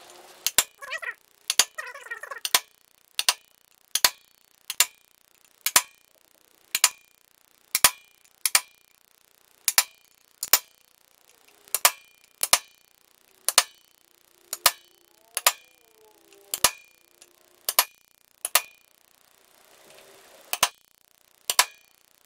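Hammer striking a steel center punch on aluminum plate: a long series of sharp metallic taps, about one every half second to a second, each with a brief ring, with a short pause near the end. Each strike deepens a punched dimple at a marked hole location, ready for center drilling.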